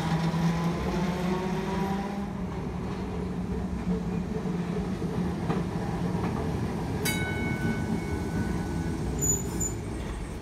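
Electric streetcar running on its track: a steady rumble with a motor whine that shifts in pitch during the first two seconds. About seven seconds in, a high ringing tone starts suddenly and holds for about two seconds.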